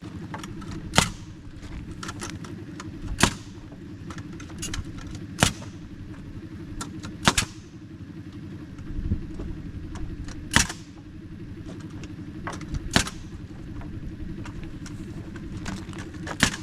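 An engine running steadily, with a loud sharp knock about every two seconds.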